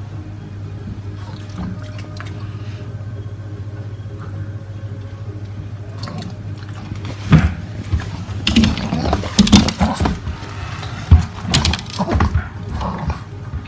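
A run of sharp thuds and knocks from footballs being handled, bounced and kicked on a paved patio, starting about halfway through, the loudest near the end as a ball is kicked at a small goal. A steady low hum runs underneath.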